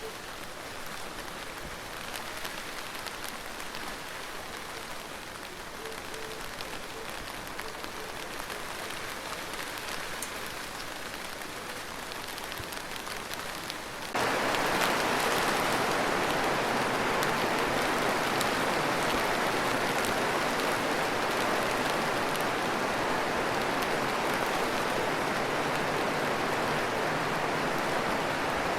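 Rain: a lighter patter with scattered individual drops, then about halfway through it cuts abruptly to a louder, denser heavy downpour.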